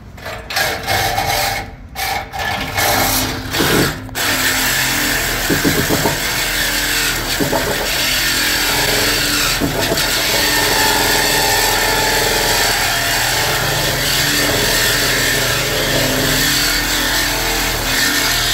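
Cordless reciprocating saw cutting through a car's exhaust pipe to remove the muffler. It starts and stops a few times in the first few seconds, then cuts steadily.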